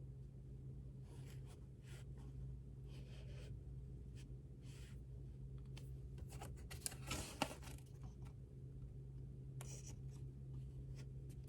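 Pen writing on paper in short scratchy strokes, busiest about seven seconds in, where two sharp taps stand out, over a steady low room hum.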